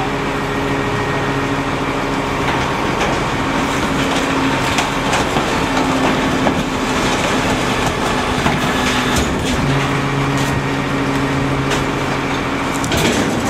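Rear-loader garbage truck's engine running steadily at the curb, its hum shifting slightly a few times. Irregular knocks and clatter sound over it as trash bins are tipped and banged into the rear hopper, with a louder knock near the end.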